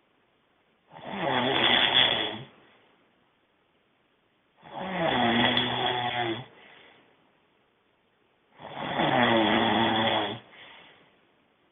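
A man snoring loudly in his sleep: three long, rattling snores about four seconds apart, each trailing off into a fainter breath.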